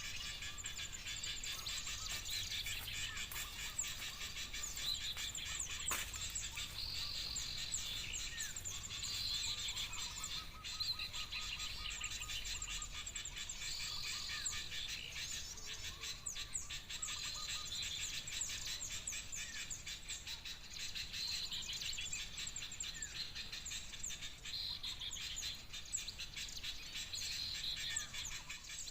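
Dense, noisy chattering of many small birds, with short whistled phrases repeating every couple of seconds: a bird-lure recording of noisy small birds mixed with bulbul calls, played to draw ioras to glue sticks. A single sharp click sounds about six seconds in.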